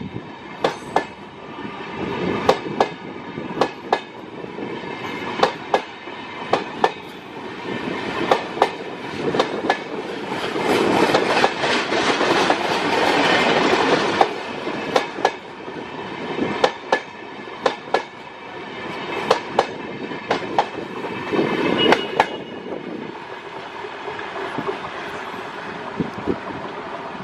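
Express train's LHB passenger coaches rolling past, their wheels clicking sharply over rail joints, often in pairs, over a steady rumble. The rumble swells partway through, and the clicks thin out near the end.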